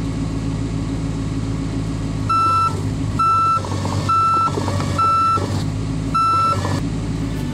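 Volvo mini excavator's diesel engine running as its raised, mud-caked track turns. About two seconds in, its travel alarm sounds five short, high, single-pitched beeps a little under a second apart.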